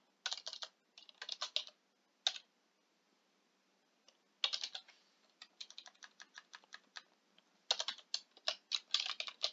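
Computer keyboard typing in quick bursts of keystrokes, with a pause of about two seconds partway through.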